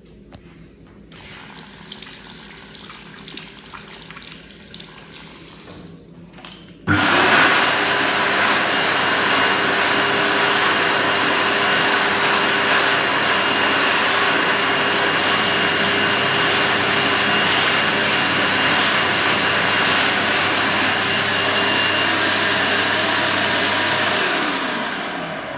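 Supreme Tornade SD stainless-steel hand dryer (made by World Dryer) switching on abruptly about a quarter of the way in when a hand goes under the nozzle, running loud and steady with a rush of air and a thin high whine, then cutting off near the end with its motor pitch falling as it spins down. Before it starts there are only faint knocks and rustling.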